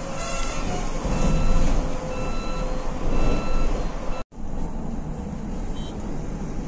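Road and drive noise inside a moving electric bus's cab, with a short electronic beep repeating about once a second until a cut about four seconds in.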